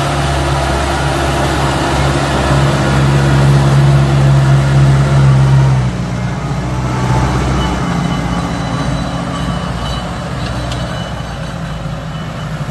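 Tractor engine running steadily while working a field, a low drone that eases off a little about six seconds in.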